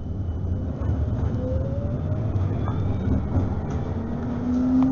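CAF Urbos 3 tram heard on board as it pulls away from a stop and gathers speed: a low rumble of wheels on rail, with the drive's whine rising in pitch. The whine is loudest near the end.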